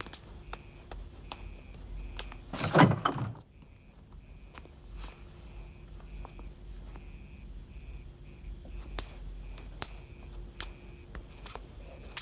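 Crickets chirping in a steady pulse, with scattered footsteps and clicks. About three seconds in comes a loud banging at a heavy studded wooden door, lasting under a second.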